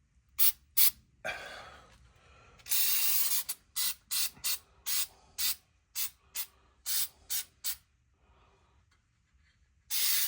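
Aerosol can spraying in many short bursts with one longer spray about three seconds in, then a pause and one more burst near the end.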